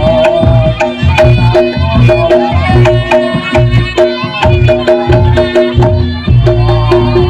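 Reog Ponorogo gamelan music played live. Drum strikes keep a fast, steady beat, tuned gongs repeat a pattern of notes, a wavering reed-horn melody runs above them, and deep gong or drum thuds fall at regular intervals.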